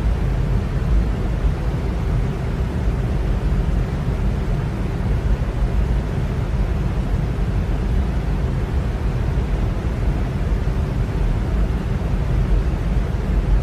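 Electric fan running steadily: an even, unbroken rushing noise, heaviest in the low end.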